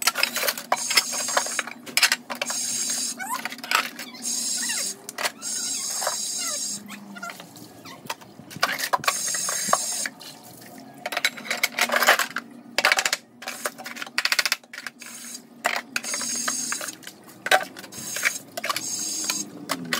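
Dishes being rinsed under a running tap. Water splashes in stretches as it is turned into the stream and out again, with frequent clinks and knocks of dishes and glassware being handled and set down to drain.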